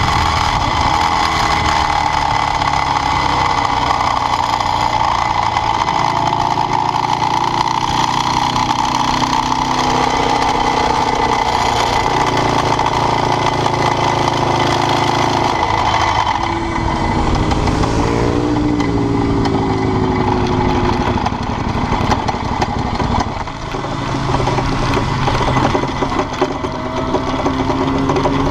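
Ducati 848's L-twin engine running. Its pitch shifts and glides up and down several times, most clearly about two-thirds of the way through.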